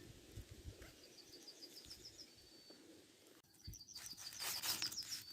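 A songbird singing two phrases, each a quick run of about a dozen high notes ending in a short held whistle. The second phrase starts about three and a half seconds in, over faint rustling.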